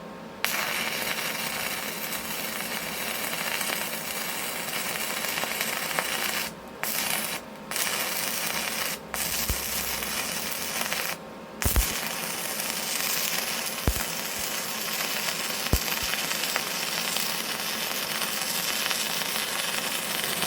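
Stick-welding arc of a 3/32-inch 6011 electrode on a Yeswelder MIG-250 Pro at 90 amps: a steady, crisp crackle that cuts out briefly a few times and restrikes. The welder is running hot, at the upper end of the rod's amperage.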